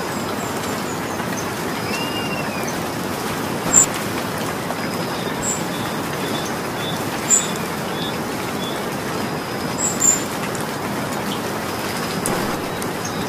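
Steady rain falling, an even hiss of drops, with a few louder sharp drips standing out about four, seven and ten seconds in.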